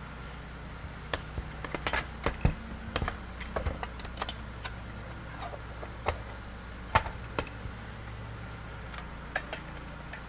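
Scattered light metallic clicks and clinks as a 7-1/4 inch circular saw blade, its washer and arbor bolt are handled and fitted onto the saw's arbor. They are busiest over the first eight seconds, with a couple more near the end, over a faint steady low hum.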